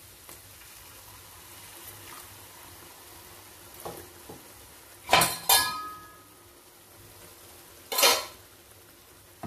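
Faint sizzling of masala in a kadai as water is added, with loud metal clanks of a utensil against the pan: two close together about five seconds in, leaving a brief ring, and one more about eight seconds in.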